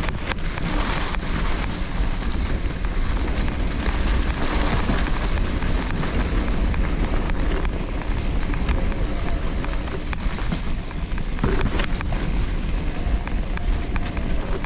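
Wind rushing over the microphone of a camera riding along on an electric mountain bike on a muddy trail, mixed with tyre rumble and a few rattling knocks from the bike.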